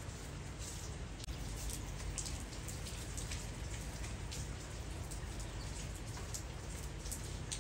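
Wet snow falling steadily: a constant soft hiss with many small, irregular taps as flakes and drips hit leaves and surfaces.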